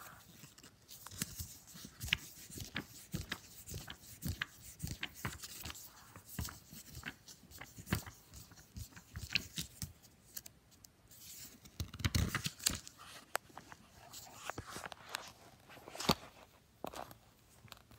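Pages of a paperback graphic novel being flapped back and forth for a Flip-O-Rama animation: repeated papery flaps and rustles with many short snaps of paper.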